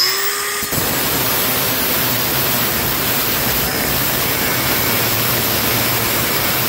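Milwaukee M18 FUEL 2980-20 cordless brushless 6-inch angle grinder spinning up, then cutting into rusty steel with a steady loud grinding noise from just under a second in. The blade is dull.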